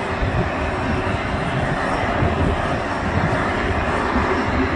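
Steady, loud jet roar from the turbines of a parked Boeing C-17A Globemaster III running on the ground, with an uneven low rumble underneath.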